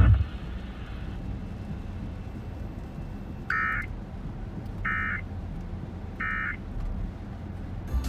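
Emergency Alert System end-of-message signal: three short warbling digital data bursts (SAME 'NNNN' code) about a second and a half apart, over a low hum and hiss.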